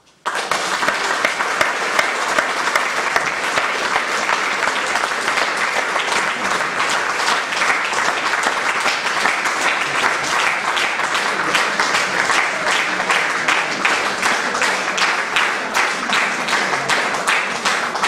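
Theatre audience applauding a curtain call. It starts abruptly and runs loud and dense, then settles into evenly spaced clapping in unison in the second half.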